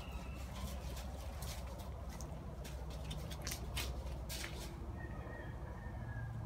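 Footsteps in dry fallen leaves: a quick, irregular run of sharp crackles and rustles that stops about two-thirds of the way through, over a low steady rumble.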